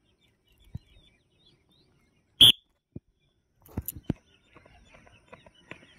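Footsteps on bare granite rock, a few irregular steps a second, beginning in the second half. One short, high chirp about two and a half seconds in is the loudest sound.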